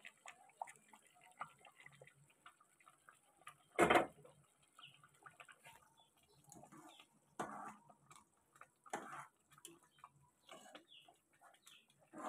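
Faint scattered ticking and popping from a pot of simmering haleem just after hot fried-spice tempering (baghar) has been poured in, with one loud knock about four seconds in.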